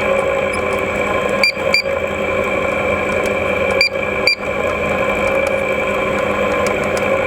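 Indoor split air-conditioner unit running with a steady hum, working again after a fault in its transformer's protection had cut its DC supply. Two pairs of short electronic beeps sound about a second and a half in and again about four seconds in.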